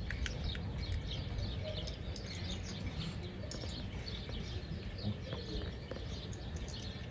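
Small birds chirping again and again in the background, over a steady low rumble.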